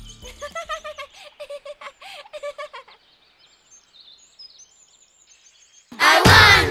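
Cartoon sound effects: a quick run of short chirping notes for about three seconds, then faint high bird tweets. Near the end, a sudden loud burst of many voices shouting.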